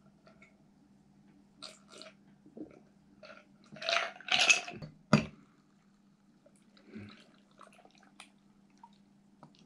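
Scattered, quiet kitchen cooking sounds: soft brief scrapes and splashes, a denser patch about four seconds in and a sharp click just after, over a faint steady hum.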